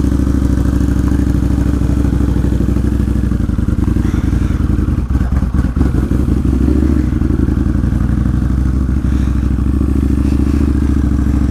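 Harley-Davidson V-Rod's liquid-cooled V-twin running steadily at low revs as the motorcycle rolls slowly along, with a short clatter of knocks about halfway through.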